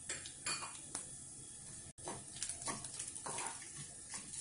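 Tempering spices (mustard seeds, urad dal, chana dal and cumin) frying in hot coconut oil: a low sizzle with irregular crackling pops.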